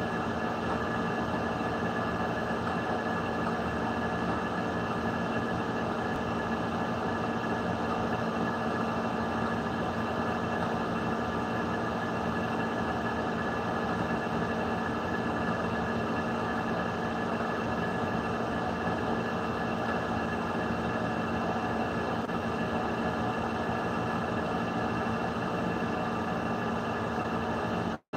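A steady machine-like hum with several constant tones over a noisy bed. It drops out for an instant near the end.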